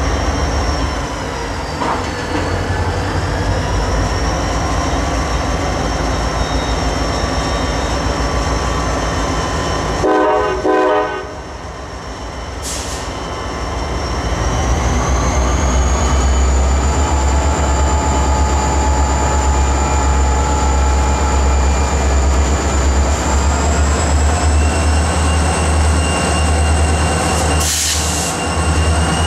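Turbocharged EMD GP40 diesel locomotives throttling up to pull a freight train away from a stop. The deep engine rumble strengthens from about halfway through, while a high whine climbs in pitch near the end. A short horn blast sounds about ten seconds in.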